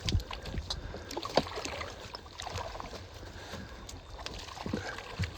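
A fishing net being hauled into a small boat by hand: water splashing and dripping off the net, with scattered knocks and a few low thumps against the boat.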